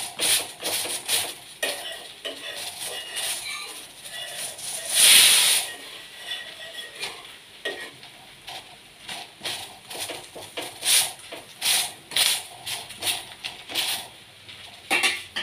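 Metal spatula tapping and scraping on a hot tawa as a garlic naan is pressed and turned while it cooks. There is a louder burst of sizzling about five seconds in.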